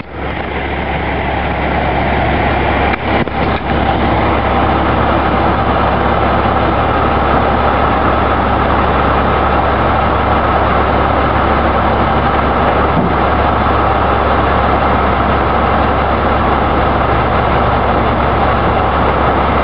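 Heavy truck engine running steadily at raised revs, building up over the first couple of seconds and then holding, with a strong low hum and two brief dips about three seconds in.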